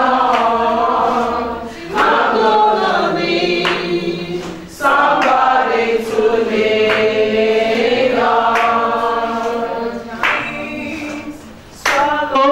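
A group of women singing together without instruments in long held phrases, with one voice sung into a microphone at the front.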